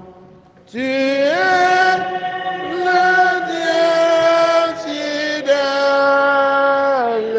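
Sung liturgical chant: after a short pause, a voice starts about a second in and holds long notes of one to two seconds each, sliding smoothly up or down from one note to the next.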